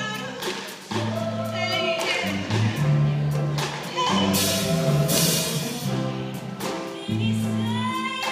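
Women's vocal ensemble singing a slow rhythm-and-blues song in harmony, over low held notes that change every second or so.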